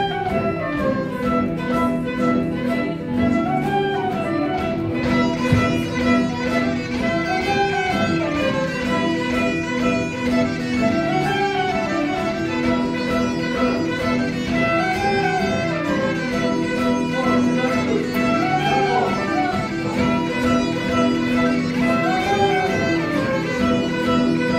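A student ensemble of flutes, clarinet and guitars plays a march. A melodic phrase rises and falls about every three and a half seconds over sustained lower notes.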